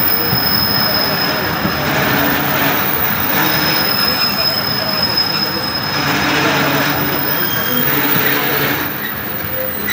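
Pakistan Railways Khyber Mail passenger train running on the track, heard from an open coach door: a steady rolling rumble with a thin, high wheel squeal that comes in near the start and again for a couple of seconds in the middle.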